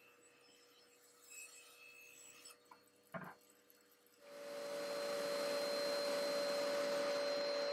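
A few light knocks of wood and a push stick being handled, the loudest about three seconds in; then, about four seconds in, the Laguna Fusion 3 table saw is switched on, spins up within half a second and runs steadily with a constant hum and whine, no cut yet.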